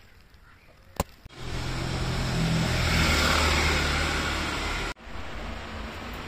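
A sharp click, then a motor-vehicle engine running and swelling louder for about three and a half seconds. It cuts off abruptly and gives way to a quieter, steady machine hum.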